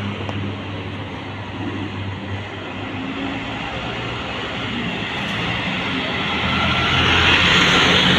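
Diesel city bus engines running with a steady low hum, getting louder toward the end as a bus pulls in close alongside.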